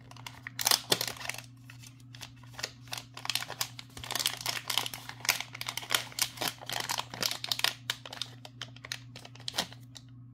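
Packaging bag crinkling in the hands as it is opened and its contents pulled out: irregular runs of crackles that thin out near the end, over a steady low hum.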